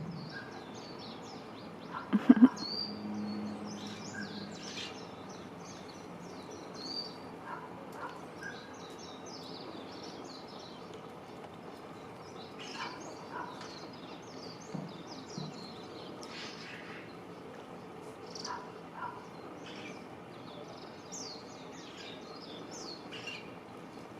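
Small wild birds giving short, high chirps over and over, scattered through the stretch. A sharp loud knock comes about two seconds in.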